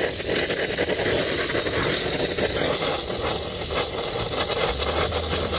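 Oxy-fuel brazing torch flame burning with a steady hiss and low rumble while it heats a copper refrigerant-line joint for brazing.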